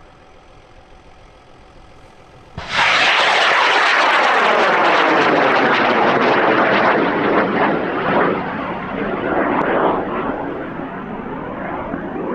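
High-power rocket motor lighting with a sudden onset about two and a half seconds in, then burning loudly as a dense rushing roar that slowly fades near the end.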